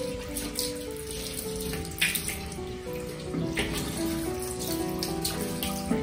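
Water running from a tap and splashing in a sink as a kitten is washed, with a few louder splashes, about two and three and a half seconds in. Background music plays a simple melody throughout.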